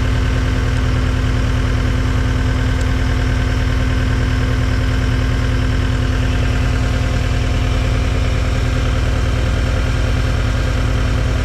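Diesel engine of a 2008 John Deere CT322 compact track loader idling steadily, with no revving or change in speed.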